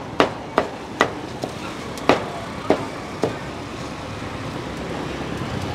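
Cleaver chopping roast beef on a wooden chopping block: seven sharp strikes about half a second apart, stopping a little past three seconds in, over steady street traffic noise.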